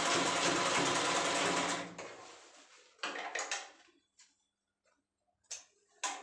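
Black domestic sewing machine running steadily as it stitches fabric, stopping about two seconds in. Afterwards come a few short rustles and clicks as the fabric is pulled out from under the needle and handled.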